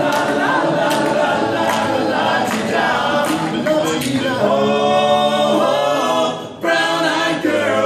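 Male barbershop quartet singing a cappella in four-part close harmony, holding one long chord about halfway through, breaking off briefly, then singing on.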